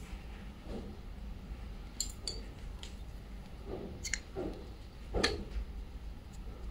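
Crochet hook and yarn being handled: soft rustling of yarn, with a few sharp light clicks of the hook against the work, the loudest about five seconds in.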